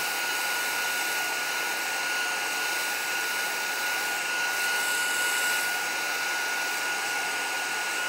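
Handheld craft heat tool blowing steadily to dry spray stain on a card: an even rush of air with a thin, steady whine over it.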